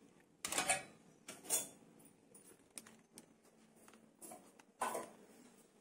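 A metal spoon scraping and clinking against a steel cooking pot while scooping out dry curry, in a few brief strokes with small ticks between.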